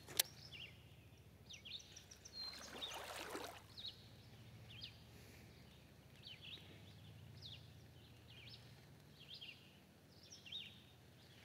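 Quiet lakeside ambience with small birds chirping, short high calls scattered all through. There is a brief rushing noise about two and a half seconds in.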